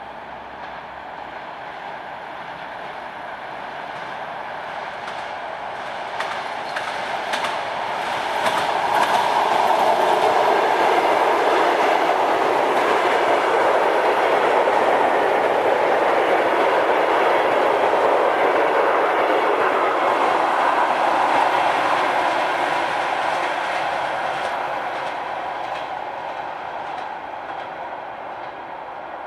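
A train passing by: the sound builds over about eight seconds, stays loud and steady for roughly twelve seconds as the cars go past, then fades away.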